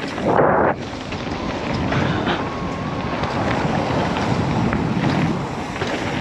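Wind buffeting the microphone over the rumble of a carbon cross-country mountain bike riding fast down a dirt jump trail, with a short, loud, muffled burst about half a second in.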